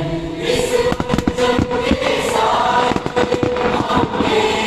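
Choral music for the fireworks show, with fireworks bursting and crackling over it in a dense run of sharp pops from about half a second to four seconds in.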